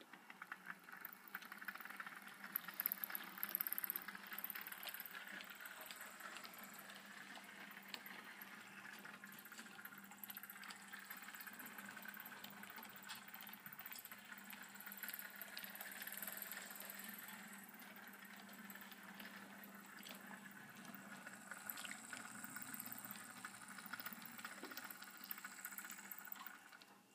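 HO-scale model trains running on the layout: a faint steady hum from the locomotive motors with a continuous rattle and small clicks of wheels on the track.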